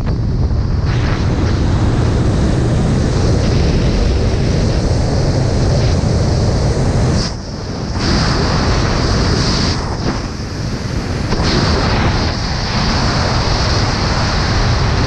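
Loud rushing wind buffeting the camera's microphone during fast wingsuit flight. It eases for a moment about seven seconds in and a few more times later.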